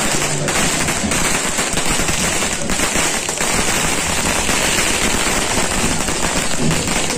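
A string of firecrackers going off, a rapid, unbroken run of sharp bangs.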